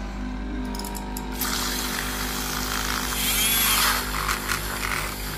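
Handheld electric milk frother whisking milk in a stainless steel jug: a small motor's steady whir, joined about a second and a half in by a frothing hiss that is loudest in the middle.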